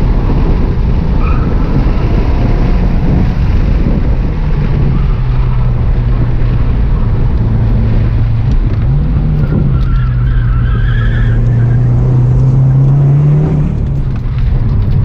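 Subaru WRX engine running hard under load through a track run, its pitch rising and falling with the throttle. Tyres squeal briefly about two-thirds through; they are all-season tyres, which the driver says are being pushed past their grip.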